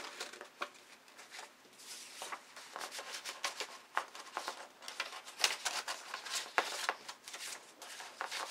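Stiff drafting vellum pieces rustling, crinkling and ticking against each other as they are bent and slotted together by hand, in irregular scratchy bursts.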